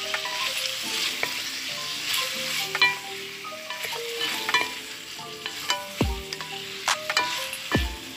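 Beef, onion and tomato sizzling in hot oil in a pot while being stirred and turned with a wooden spatula, with a few sharp clicks. Short pitched notes and several low falling tones sit over it, the falling tones in the second half.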